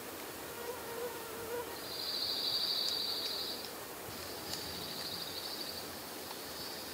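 A wild animal's high, buzzing trill, given twice: a long trill about two seconds in, then a shorter one after a brief pause.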